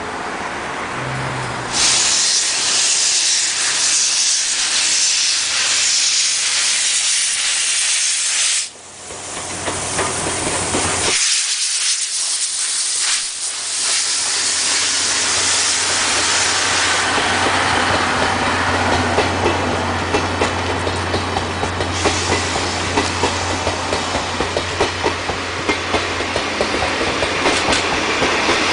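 Steam locomotive pulling away from a station. A loud hiss of steam for the first several seconds breaks off about nine seconds in. Exhaust chuffs and wheel clatter then build into a regular beat over a steady low hum as the train gathers speed.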